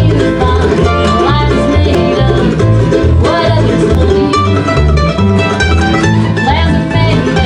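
Bluegrass string trio playing: upright bass plucking steady low notes in rhythm under mandolin and acoustic guitar.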